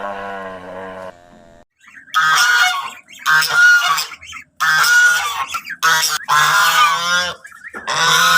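Geese honking: a run of loud, harsh honks, each lasting about a second, beginning about two seconds in. Before them, a low, steady animal call breaks off about a second in.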